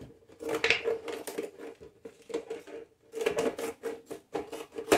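Scissors snipping through a thin, soft plastic fabric-softener bottle, a quick run of irregular crisp cuts with a denser cluster a little past halfway.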